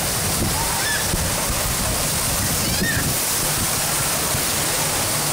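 Steady rushing wash of water in a wave pool, with a few faint distant shouts of voices over it.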